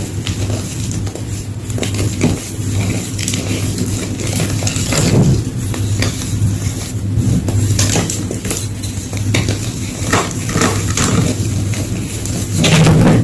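Gym chalk being crunched and crushed: a run of irregular crisp cracks and crumbling. A steady low hum runs underneath.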